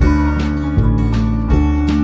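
Background music led by acoustic guitar, with a steady bass that changes note about every three-quarters of a second.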